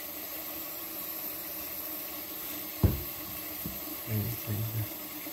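Kitchen tap running into a stainless steel pot in the sink, a steady hiss of pouring water. A sharp knock about three seconds in is the loudest moment, with a fainter one just after.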